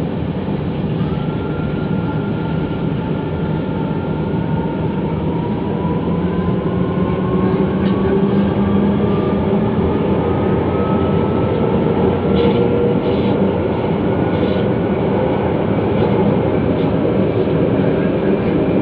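MRT-3 light-rail train running on elevated track: a steady rumble of wheels and running gear, with a thin whine that slowly rises in pitch as the train picks up speed. A few faint short clicks come about twelve to fourteen seconds in.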